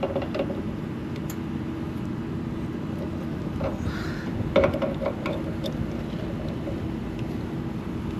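Steady hum of a running air-conditioning condensing unit. Over it come a few light metallic clicks of a wrench on brass service-valve caps, the loudest about halfway through.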